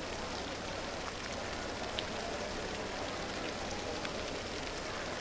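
Steady rain-like hiss of water spraying onto the diving pool's surface, with one faint click about two seconds in.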